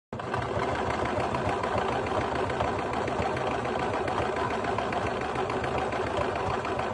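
Brother domestic sewing machine running steadily at speed, stitching through fabric with a fast, even run of needle strokes.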